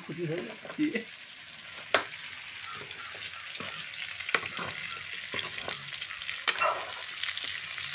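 Vegetables sizzling in hot oil in a kadhai while a metal ladle stirs them, scraping and clicking sharply against the pan several times.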